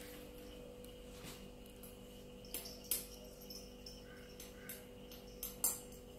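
Cat eating from a plastic food bowl, with a few sharp clicks, the two loudest about three and five and a half seconds in, over a faint steady hum.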